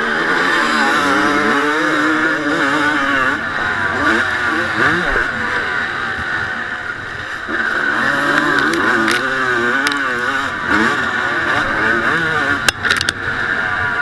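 Honda CR250 two-stroke single-cylinder engine, heard from a camera on the bike, revving up and down hard under racing throttle on a motocross track. It eases off about six seconds in and pulls hard again a second and a half later; a few sharp clicks come near the end.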